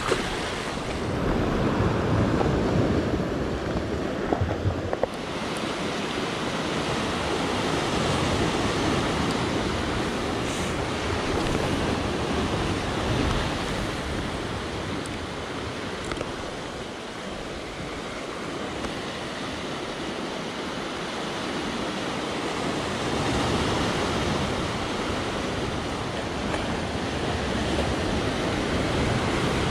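Sea surf washing and swirling against shoreline rocks, swelling and ebbing in slow surges. There are a few brief knocks about four to five seconds in.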